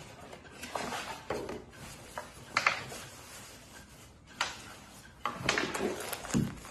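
Scattered rustles, scrapes and light knocks of cardboard packaging being handled: swim trunks slid out of their cardboard product box, then a hand rummaging in a cardboard gift box.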